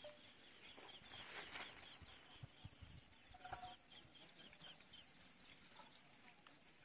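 Near silence: faint open-air background with a few faint, short bird chirps.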